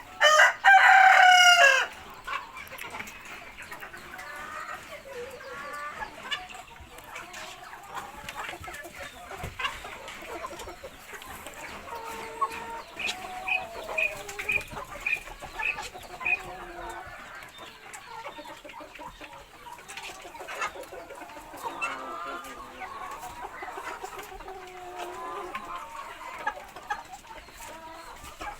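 Chickens clucking, with a loud rooster crow lasting about a second and a half near the start. A run of short, evenly spaced high notes sounds around the middle.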